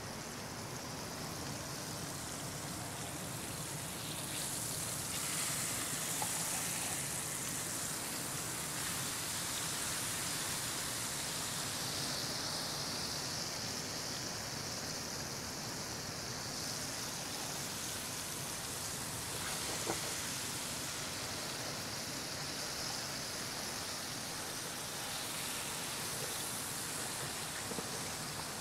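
Rockfish fillets frying in hot oil in a cast iron skillet: a steady, high sizzling hiss, with a few light clicks as the fillets are turned with tongs.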